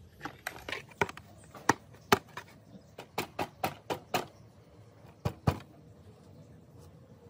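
A string of about fifteen sharp, irregularly spaced clicks and knocks, with a quicker run of taps about three to four seconds in and two strong knocks near the end.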